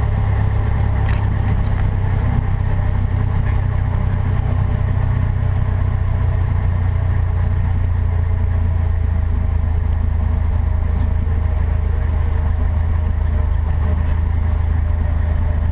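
Cessna 152's four-cylinder Lycoming piston engine and propeller running steadily, a constant low drone heard from inside the cockpit.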